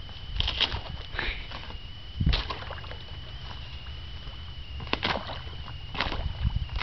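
A stick jabbing at thin ice along the edge of a frozen pond: about six sharp knocks and cracks at irregular intervals, the loudest with a deep thud about two seconds in.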